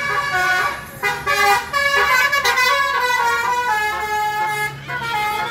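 Telolet bus horn, a multi-tone musical air horn, playing a tune of short notes that step from pitch to pitch.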